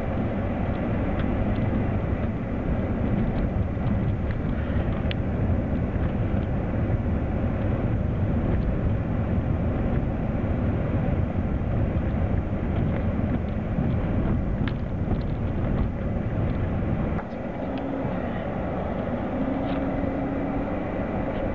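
A vehicle driving slowly up a rough dirt track, heard from inside the cab: a steady low rumble of engine and tyres on dirt, with small clicks and knocks throughout. About three-quarters of the way through, a sharp click, after which it runs a little quieter.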